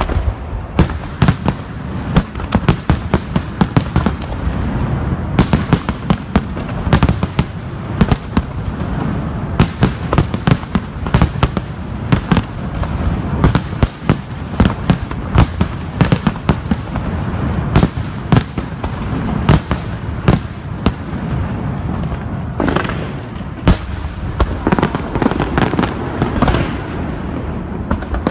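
Aerial fireworks display: shells bursting in rapid, irregular succession, several sharp bangs a second over a continuous low rumble of echoing reports.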